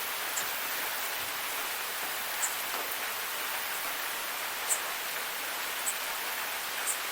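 Waterfall: a steady, even rush of falling water, heard as a constant hiss, with a few brief high-pitched ticks over it.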